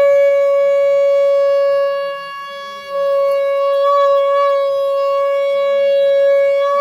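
Conch shell (shankh) blown in one long blast: a single steady held note with bright overtones. It sags in loudness for about a second near the middle, swells back, and stops at the end.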